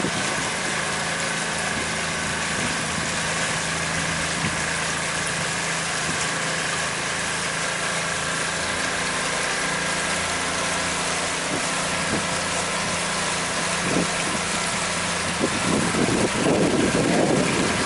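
Pontoon boat's outboard motor running steadily under way, over a constant hiss of water and wind, growing a little louder and rougher near the end.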